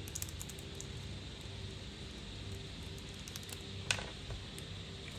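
Steady low room hum with a few light ticks and one sharp click about four seconds in, from a metal Zippo lighter being handled.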